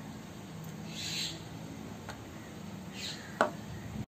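Low background ambience with faint bird calls and one sharp click a little past three seconds in.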